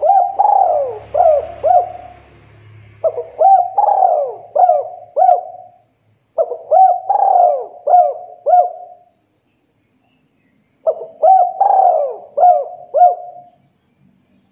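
Spotted dove cooing: four phrases of its rolling, swooping song with short pauses between them, the last ending a second or so before the end.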